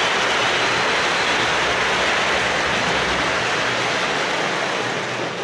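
Large arena crowd applauding, a steady dense clapping that eases off slightly near the end.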